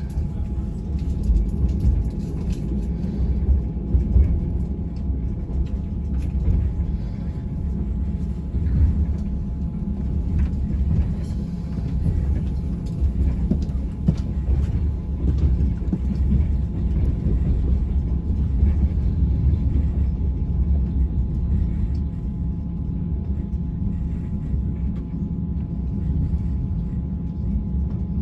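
Passenger train running: a steady low rumble heard from inside the carriage, with a faint steady whine above it.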